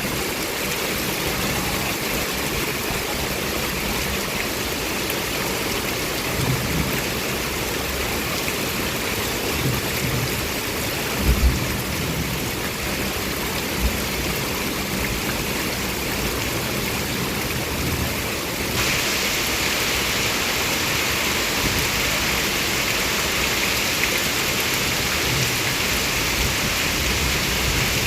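Heavy rain falling in a steady, dense hiss, with a few brief low thumps about a third of the way in. About two-thirds through, the rain suddenly grows louder and brighter.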